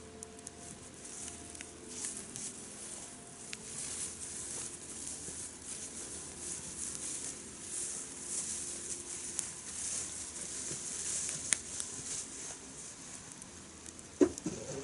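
Wood campfire crackling and hissing, with scattered sharp pops over a steady hiss. A brief pitched call comes near the end.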